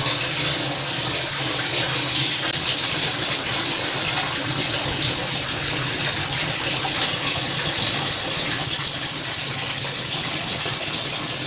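Pot of water heating on a stove, a steady hissing rush as it comes up to the boil.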